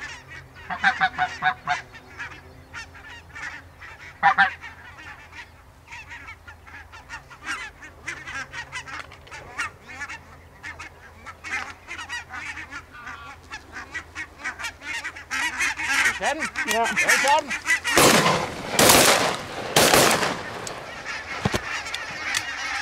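A flock of barnacle geese calling: many short, high yapping calls overlapping, growing denser and louder in the last several seconds. Three loud rushing bursts break over the calls near the end.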